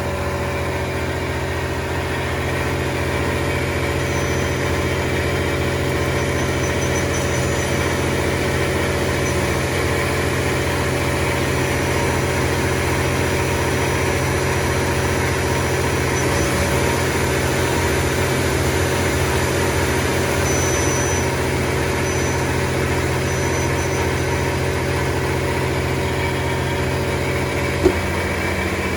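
FEMCO Durga 25E CNC turning center running under power, giving a steady machine hum with several constant tones and a faint on-and-off high whistle. A single sharp click comes about a second before the end, after which the hum changes slightly.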